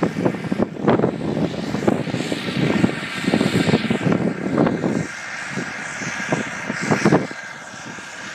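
Vintage tractor engine running under load as it pulls harrows across ploughed ground, heard from across the field; the sound is uneven and drops in level about five seconds in.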